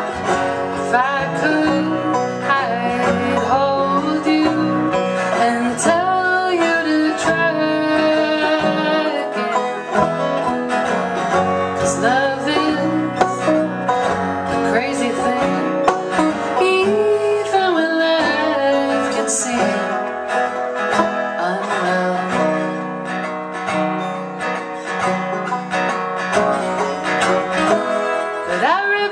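Acoustic folk trio playing a song live, led by plucked string instruments, with singing in places.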